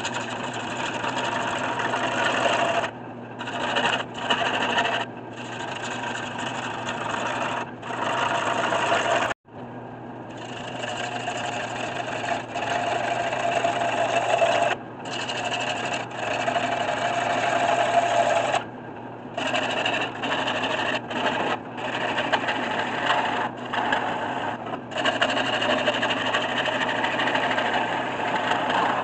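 Gouge cutting a spinning spalted maple blank on a 1981 Delta 12-inch wood lathe: a steady hiss of shavings peeling off over the lathe's motor hum, breaking off briefly several times.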